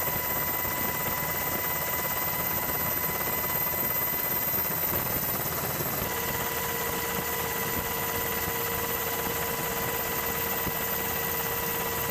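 Helicopter running steadily: an even rush of engine and rotor noise with several steady high whining tones. About six seconds in the sound shifts at an edit and a lower steady tone comes in.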